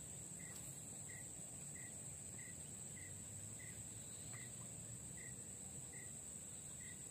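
Faint outdoor insect chorus: a steady high-pitched cricket-like trill, with a short chirp repeating evenly about every two-thirds of a second.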